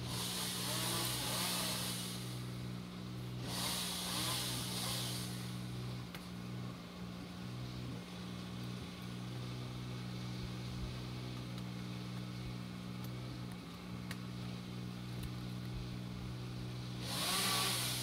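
Tree-removal work: an engine runs steadily, and a chainsaw revs and cuts in three short bursts, about a second in, around four seconds in, and near the end.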